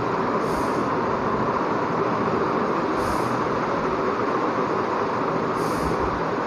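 Steady background noise with a faint low hum, and a soft high swish about every two and a half seconds.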